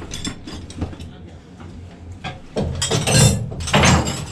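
Metal spanners clinking and clattering as a set of spanners is handled and laid out, with scattered small clicks and two louder clatters in the last second and a half.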